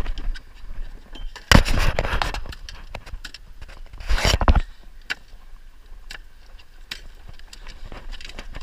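Landing net and fishing gear being handled in the bottom of a wooden boat, around a landed salmon: rustling, scraping and scattered clicks, with two louder rough scrapes about one and a half and four seconds in.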